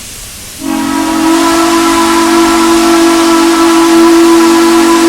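Steam locomotive whistle blowing one long, loud blast, a low chord of several tones held steady, starting about half a second in over a background hiss of steam.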